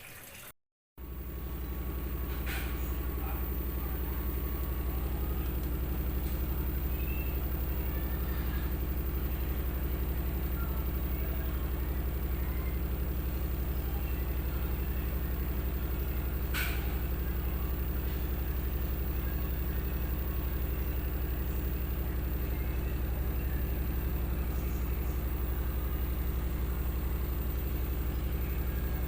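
LG Smart Inverter top-load washing machine running late in its wash cycle: a steady, deep motor-and-drum hum that comes in suddenly just after a brief silence, with a couple of faint clicks.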